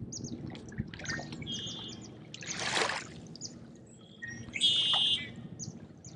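Small birds chirping and singing, with short high chirps throughout and two held trills, the louder one about four and a half seconds in. A brief rush of noise comes about three seconds in, over faint lapping water.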